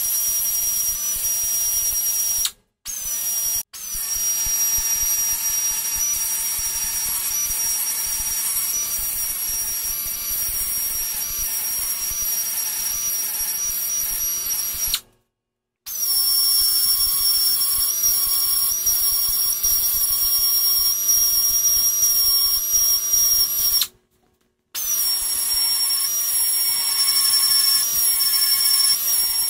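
Cordless narrow belt sander (band file) running with a steady high whine, its belt grinding against an aluminium chassis rail. The sound stops abruptly and resumes three times: about three seconds in, midway, and about twenty-four seconds in.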